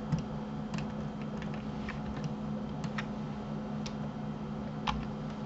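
Irregular clicks of a computer mouse and keyboard keys, about a dozen in a few seconds, over a steady low hum.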